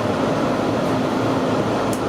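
Steady interior noise inside a Resort Asunaro hybrid railcar: an even machinery hum with a low steady tone under it.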